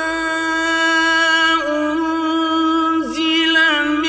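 A man reciting the Quran in the slow, melodic mujawwad style, holding one long, steady note on a drawn-out vowel that dips briefly twice.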